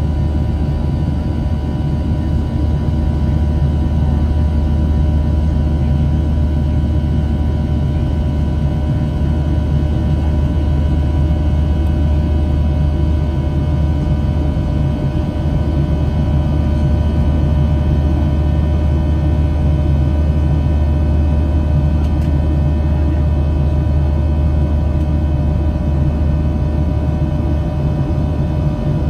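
Steady drone of a Boeing 737-700's CFM56-7B jet engines heard inside the passenger cabin: a heavy low hum under a constant whine of several fixed tones and rushing air noise, with no change in power.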